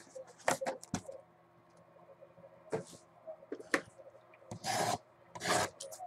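Cardboard trading-card boxes being handled and slid against each other: a string of short dry scrapes, with one longer rub of about half a second near the end, as the Topps Finest mini boxes are moved about.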